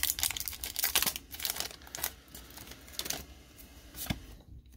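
Foil booster-pack wrapper crinkling and rustling as it is peeled off the cards, busiest in the first second or so, then sparser handling crackles, with one sharp click near the end.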